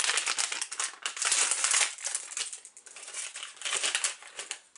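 Crinkly plastic blind-bag wrapper crackling as it is handled and pulled open by hand, loudest in the first two seconds, with another burst a little before the end.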